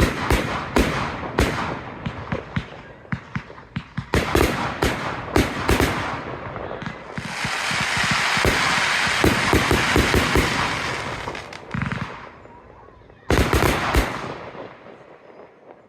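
Professional display fireworks: a rapid run of sharp shell bursts and bangs, then several seconds of dense crackling hiss, then two more sharp bangs near the end before the sound dies away.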